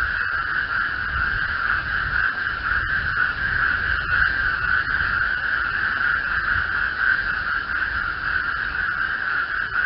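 Frog chorus: many frogs calling at once, blending into a continuous, dense trill with no break. A low rumble runs underneath.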